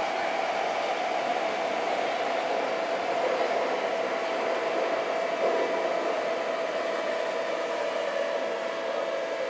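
Tokyo Metro 8000 series subway car running at speed, heard from above its armature chopper: a steady rush of running noise with an even whine held throughout.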